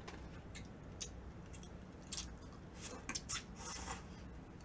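Faint eating sounds: scattered soft clicks of chopsticks and chewing as a bite of food is picked up and eaten, with a slightly longer mouth noise about three and a half seconds in.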